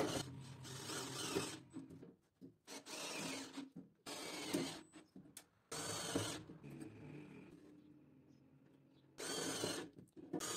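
Cordless drill driver running self-tapping screws through plastic wiring duct into a metal mounting plate. It comes in about five short runs of a second or so each, with a longer pause before the last.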